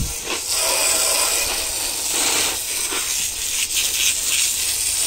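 Water jet from a garden hose's brass spray nozzle hissing steadily and spattering against a Turbo 400 automatic transmission case, rinsing off degreaser and grime.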